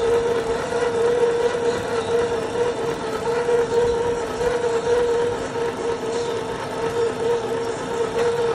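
Steady machine hum holding one constant mid-pitched tone.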